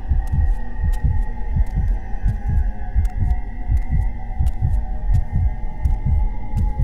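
A low throbbing pulse, about four beats a second, over a steady hum, with faint ticks scattered above it.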